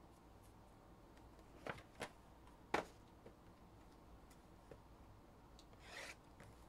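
Quiet handling of trading cards and packs on a table: three light clicks about two to three seconds in, the third the sharpest, and a short soft rustle near the end.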